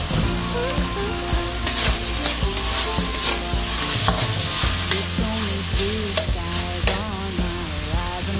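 Chicken sizzling in a hammered carbon-steel wok while a metal spatula stirs it, with clicks and scrapes of the spatula on the pan. The sizzle is louder through the middle.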